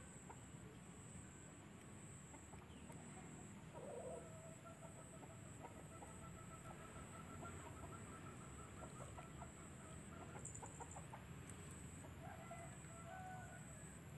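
Faint chicken clucking: a short call about four seconds in, then a long, rapidly pulsed call lasting until about eleven seconds in, and a few short calls again near the end.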